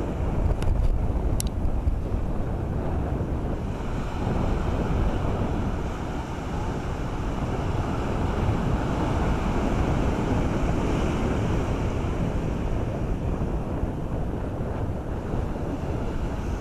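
Wind buffeting the microphone with a steady low rumble, over surf breaking and washing up the beach.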